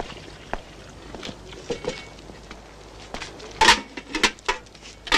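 Scattered knocks and clinks of cups and tableware being handled as coffee is served, the loudest about three and a half seconds in.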